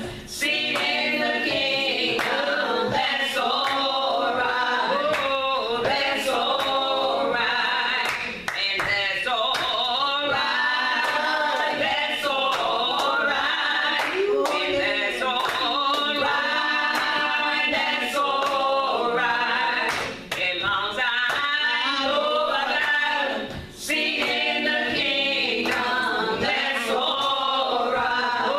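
A choir singing with male voices among them, with sharp claps at intervals.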